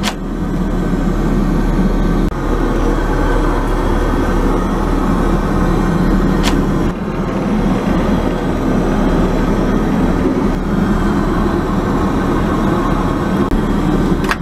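Steady low roar of an airliner cabin in flight, the Boeing 777-200ER's engines and airflow, heard inside the lavatory. A short click comes about six and a half seconds in.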